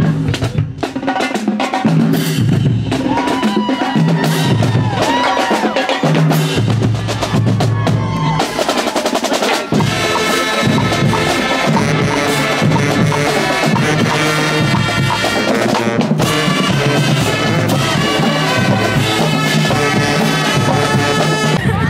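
Marching band drumline playing a cadence on snare and bass drums, with the band joining in sustained pitched notes over the drums from about ten seconds in.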